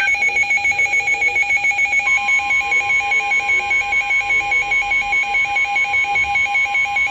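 Emergency alert tone for a tornado warning: a fast warbling electronic alarm that pulses about six times a second. A second, steady tone joins about two seconds in.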